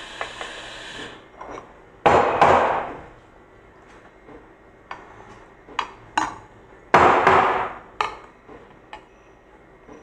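Knocks and clicks of handling while steamed milk is poured from a stainless steel pitcher into a ceramic cup: two pairs of sharp knocks, about two and about seven seconds in, and a few lighter clicks between them. A faint hiss fades out in the first second.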